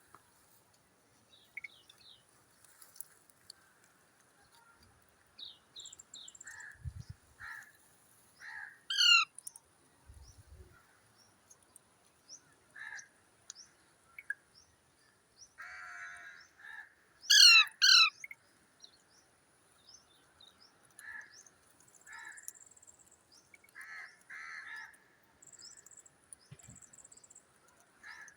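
Parrot calling: scattered short calls with two loud bursts of rapid, sweeping screeching notes, about nine and seventeen seconds in.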